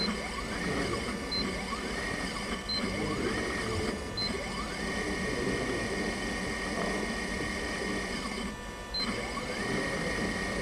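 AIDA F-20III roll feeder running its feed cycles: the drive whine rises, holds and falls, with several short feeds in the first four seconds, then a longer run of about four seconds and another near the end. A short high beep comes at the start of most cycles.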